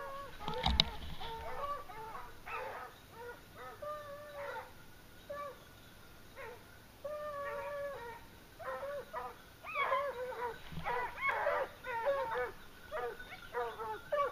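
A pack of hunting hounds baying on the trail of a wild boar, many overlapping calls in irregular bursts that grow denser in the second half. A single sharp knock about a second in.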